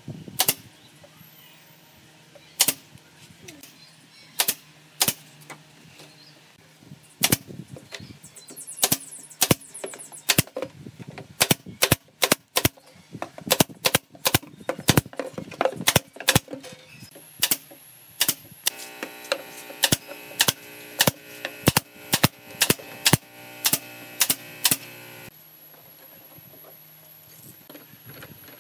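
Pneumatic nail gun firing nails into pine slats: dozens of sharp shots, some single and some in quick runs. A steady hum joins for several seconds past the middle.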